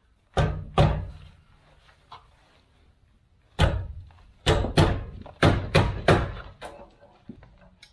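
Metal knocks and clunks from the Land Cruiser's stuck spare tire carrier mounting bracket being worked against the frame: two under a second in, then a run of about seven in quick succession. The bracket, its bolts already out, is not coming down.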